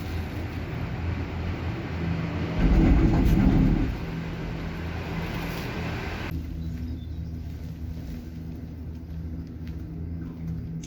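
A vehicle running with a steady low hum. About two and a half seconds in, a louder low rumble lasts about a second. About six seconds in, the higher hiss cuts off suddenly while the low hum carries on.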